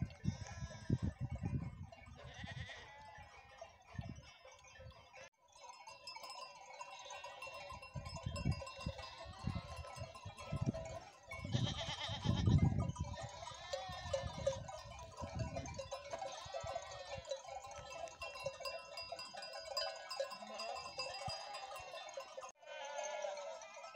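A flock of sheep and goats bleating again and again, many animals calling over one another.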